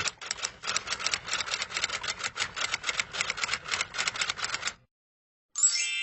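Typewriter keys clacking in a rapid, uneven run that stops just before five seconds in. After a short pause, a single bell ding rings near the end and fades slowly.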